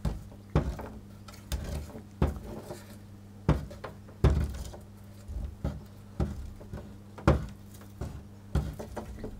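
A metal high-current clamp tapped and knocked against the pins of a burnt-out mains plug and the wooden board. It gives about ten sharp, irregular knocks as the dead flex is probed and found open circuit. A steady low hum runs underneath.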